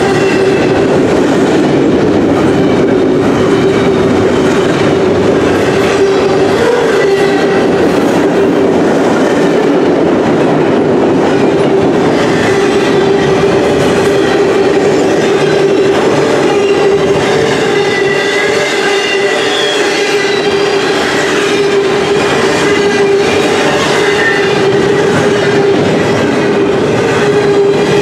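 Double-stack container train cars rolling past close by: a loud, steady rumble and rattle of steel wheels on the rails, with a constant ringing tone underneath.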